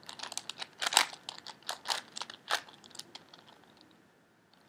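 4x4x4 Rubik's cube being turned by hand: a quick run of plastic clicks and clacks as the layers turn. It thins out about three and a half seconds in, goes quiet for a moment, and a few more clicks come near the end.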